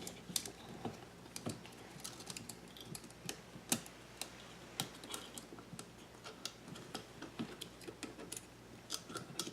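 Faint, irregular clicks and taps of hands handling a plastic string-trimmer spool and head while threading nylon trimmer line through an exit hole.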